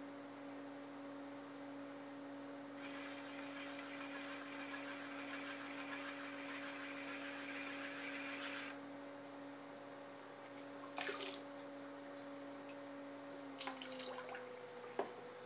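Electric pottery wheel motor humming steadily, with a wet hiss for about six seconds as a rib tool scrapes the clay of a spinning tumbler. Near the end a few sharp clicks come and the hum dips in pitch as the wheel slows, then rises again.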